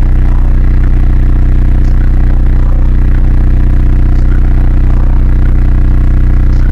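Sundown car-audio subwoofers driven by CT amplifiers in a 1994 Ford Explorer, playing a steady, very loud deep bass note held for several seconds.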